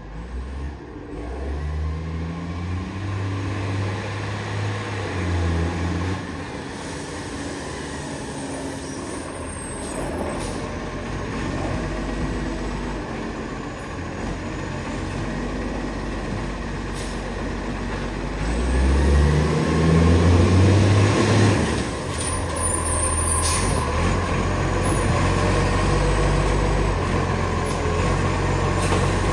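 Garbage truck's diesel engine, which has an exhaust leak, running with two stretches where it revs up and holds, about a second in and again near twenty seconds in, the second the loudest, and idling lower between. A few short sharp sounds cut across it.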